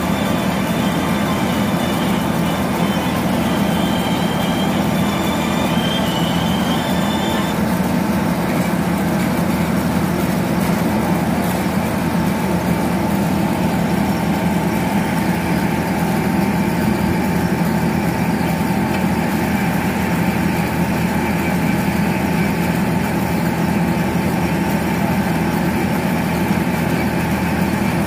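Heavy diesel construction machinery running steadily, with a high whine over the engine that stops about seven seconds in.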